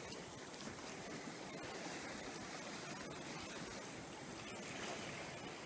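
Steady wind and sea-wave noise, with wind on the microphone.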